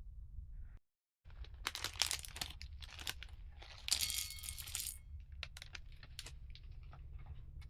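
Crinkling, rustling clicks of something being handled, over a low steady rumble; the sound drops out completely for a moment about a second in, and the crinkling is loudest near the middle.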